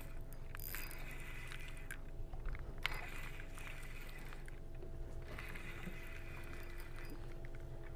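Faint, steady low rumble of wind and lake water around a boat, with a faint steady hum beneath it and a few light clicks about two to three seconds in.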